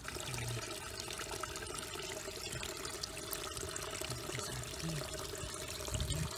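Water pouring and splashing steadily, with a faint steady hum underneath.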